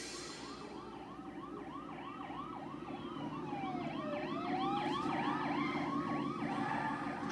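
Cartoon siren sound effect yelping fast, about three rises a second, over a steady engine drone. About halfway through, a second siren tone sweeps down and back up. It plays through a TV speaker and is picked up by a phone in the room.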